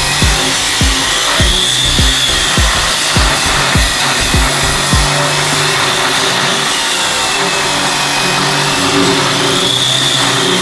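Stock teeth being cut off a Kubota excavator bucket in rhythmic strokes, about one every 0.6 s, which stop about five seconds in. A steady mechanical hum runs underneath and is left alone afterwards.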